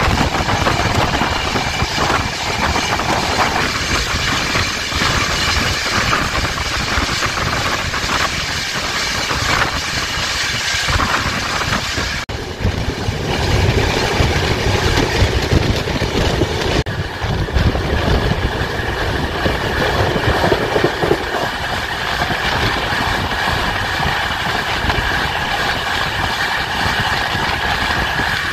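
Noise of a passenger train running at speed, heard from an open coach door as a long passenger train passes the other way on the next track: a loud, dense rush of wind and wheels on rail. The sound changes abruptly about twelve and seventeen seconds in.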